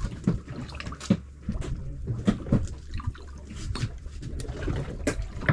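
Water dripping and splashing with irregular small clicks and knocks, over a steady low hum.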